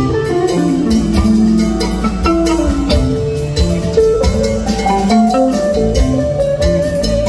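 Live rock band playing, with electric guitar picking a melodic line of changing notes over a drum kit's steady beat.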